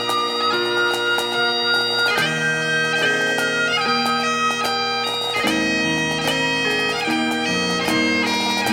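Bagpipe music: a quick melody played over steady drones.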